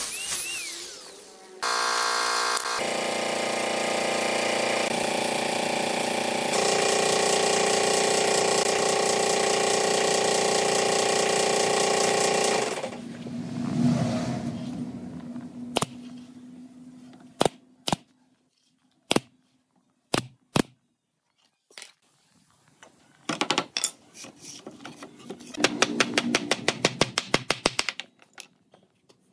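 Angle grinder with a sanding disc running against wood, its pitch dipping and rising under load at first, then running steadily for about ten seconds before it stops. A pneumatic brad nailer then fires single sharp shots a second or so apart, and near the end a hammer taps quickly, several light knocks a second.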